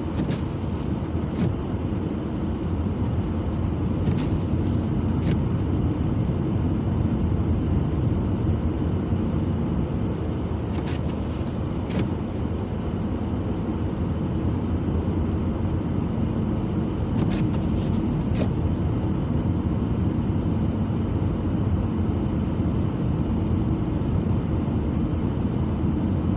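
Car driving, a steady low rumble of engine, tyres and wind, with a few sharp clicks or knocks scattered through.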